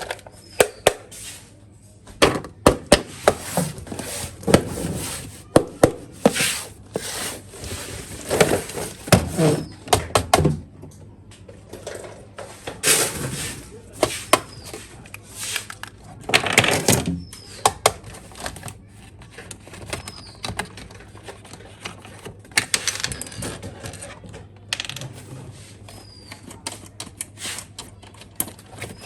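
Hands handling a toy RC car and its packaging: irregular clicks, taps and rustling of plastic and cardboard.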